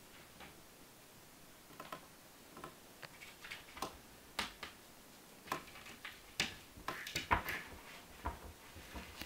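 A cat pawing and clawing at a wooden wardrobe door and drawer: irregular light clicks and knocks of claws and wood, sparse at first, then coming faster and louder in the second half.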